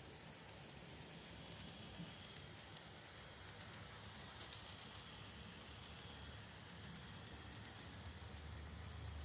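KATO N-gauge E129 series two-car model train running on its track: a faint low hum from the motor and wheels under a steady hiss, growing a little stronger near the end, with a few light clicks a little before the middle.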